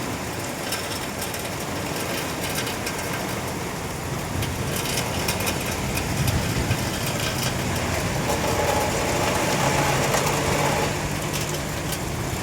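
Rain falling steadily, with many sharp drop ticks on hard surfaces. A motor vehicle's engine hum swells in about halfway through and fades out near the end.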